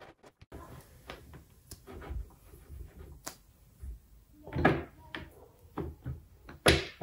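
Magnetic drill, its magnet switched off, being shifted and lined up on a steel tabletop: scattered scrapes, clicks and metal knocks, with the loudest clunks about two-thirds through and again just before the end.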